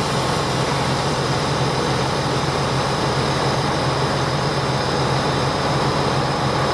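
Tractor engine running steadily at an even speed while pulling a hay baler off a trailer.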